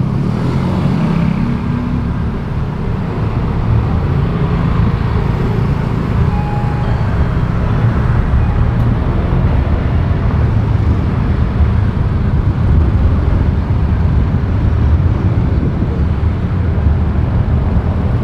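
Street traffic noise heard while driving: a steady low rumble of engines and tyres on the road.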